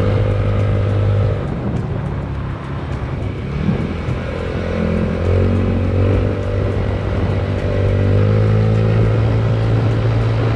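Yamaha Mio Sporty scooter's small single-cylinder engine running under way, with wind and road noise. Its steady drone eases off a little under two seconds in and picks up again about five seconds in.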